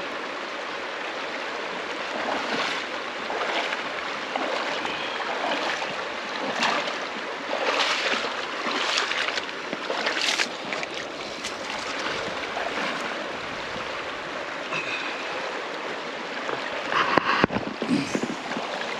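People wading through a knee-deep mountain stream: legs splashing through the current at each step over the steady rush of flowing water. The splashes come irregularly, with a louder cluster near the end.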